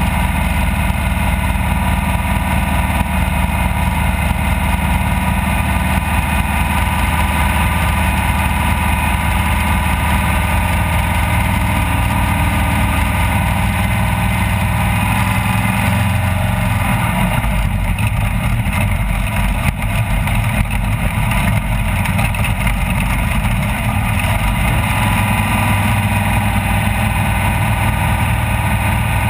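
Off-road race vehicle's engine running steadily and loud. Its note shifts briefly past the middle.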